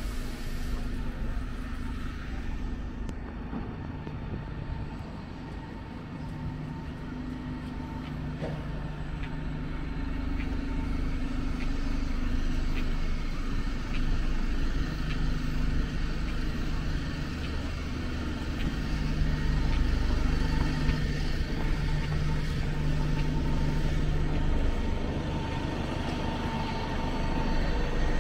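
Road traffic: motor vehicle engines running and passing close by, a low rumble with a steady engine hum that comes and goes, getting louder after the first few seconds.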